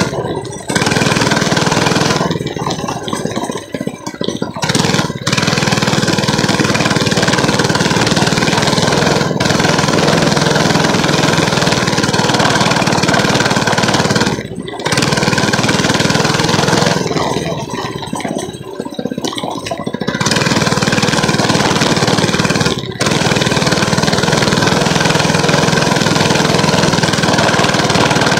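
Small motorcycle engine running steadily while being ridden. The sound eases off twice for a few seconds and breaks briefly a couple of other times.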